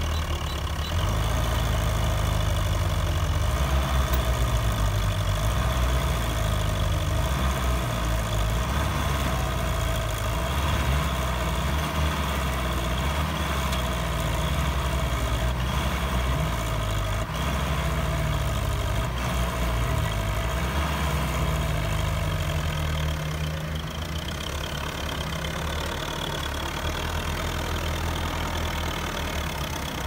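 Belarus MTZ 820 tractor's four-cylinder diesel engine running under heavy load, blowing black smoke, while hauling a Kubota DC-105X combine harvester out of deep mud, with the combine's diesel also running. The engine note is steady and loud, easing off slightly towards the end.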